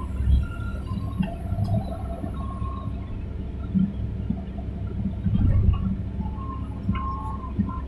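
Hydraulic excavator working while digging: a steady low engine rumble with irregular knocks and swells as the bucket moves soil, and faint high squeals coming and going.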